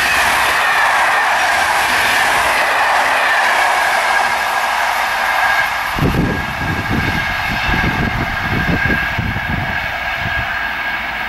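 SNCF Corail passenger coaches of an Intercités night train rolling past at speed: a steady rush of wheels on rail with a high steady ringing tone. About halfway through the last coach clears, the rushing fades, and low gusty buffeting of wind from the train's wake on the microphone takes over.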